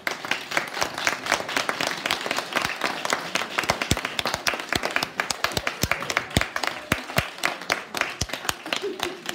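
Audience applauding: many hands clapping in a dense, steady patter, with some louder claps close by.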